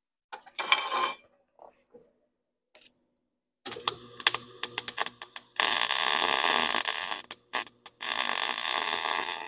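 Electric arc welding: a few short crackling arc starts, then two longer runs of steady crackling hiss with a low hum under them, the second beginning about eight seconds in. A brief clatter of metal sounds near the start.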